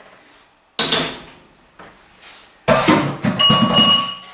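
Metal kitchenware being handled: a single knock about a second in, then a clatter near the end with a ringing metal tone that lasts about a second.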